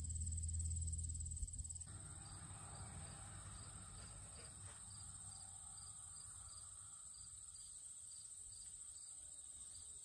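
Insects trilling steadily at a high pitch, with a low rumble on the microphone that stops about two seconds in.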